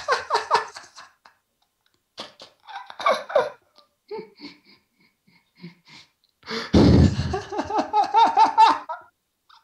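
People laughing hard in short bursts, ending in a long, loud fit of laughter in the last third.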